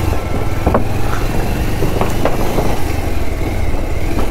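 Motorcycle engine running at low speed while the bike rolls over a wooden plank bridge, the loose boards knocking under the tyres several times.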